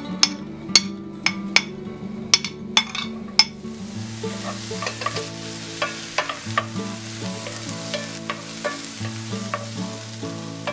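Diced onion going into hot oil in a nonstick frying pan: sharp knocks and taps as it is scraped off a plate, then from about three and a half seconds in a steady sizzle with light clicks and scrapes of a wooden spatula stirring it. Soft background music plays underneath.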